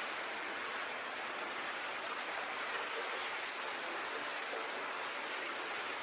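Water flowing through a tunnel, a steady even rush.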